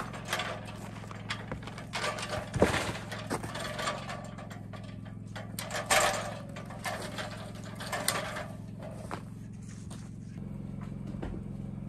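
Aluminium extension ladder being moved and set against a wall: irregular clanks and rattles of its metal rails and rungs, the loudest about two and a half and six seconds in.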